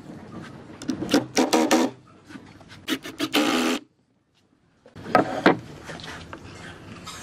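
Rough scraping and rubbing of wooden boards being pushed and worked together, in several short, irregular bouts. The sound cuts out completely for about a second in the middle.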